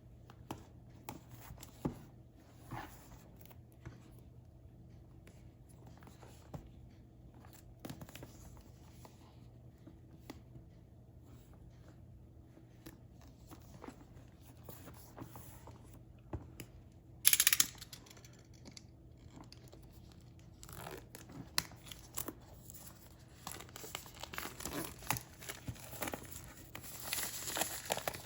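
Product packaging being handled and opened: scattered light clicks and rustles, one short loud tear about seventeen seconds in, then crinkling and tearing that grows busier toward the end.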